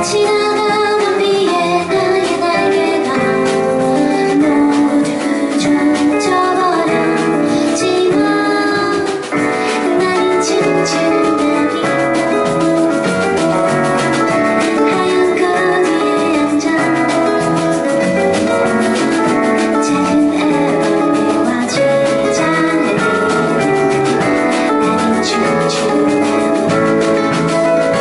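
Live band playing a mid-tempo song on drum kit, acoustic and electric guitars and keyboard, with a woman singing.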